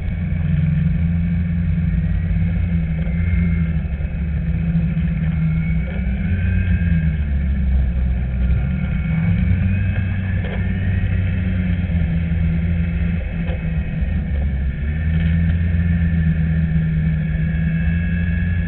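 Snowmobile engine running steadily as the sled is ridden along a trail, with a higher whine above it that rises and falls in pitch as the throttle changes.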